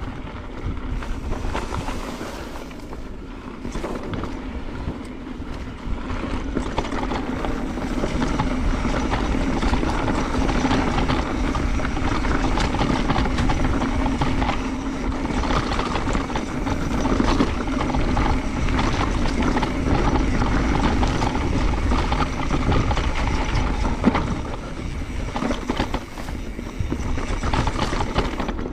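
Mountain bike riding down a dirt trail: wind rumbling on the microphone over knobby tyres rolling on rough ground, with many small rattles and knocks from the bike. It gets louder from about six seconds in, as the ride picks up.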